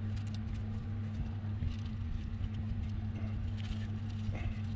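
Steady low electrical hum, with a few light clicks and taps as metal change gears are handled and fitted on a Myford Super 7 lathe's gear train.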